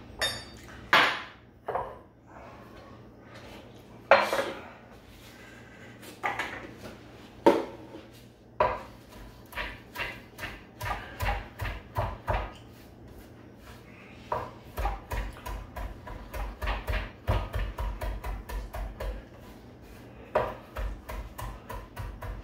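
Chef's knife chopping fresh parsley on a cutting board: a few scattered knocks at first, then a run of quick, even chops, about three a second, for roughly ten seconds.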